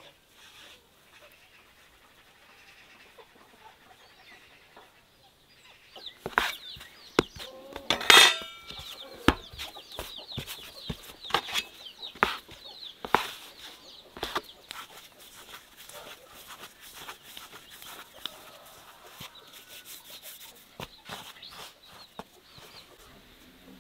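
Knife blade knocking and tapping on a wooden board as dough is cut into pieces, in scattered sharp knocks from about six seconds in. A hen clucks in the background, loudest about eight seconds in.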